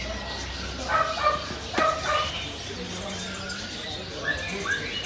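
Caged puppies yipping and barking in short calls: a few about a second in, and two short rising yips near the end.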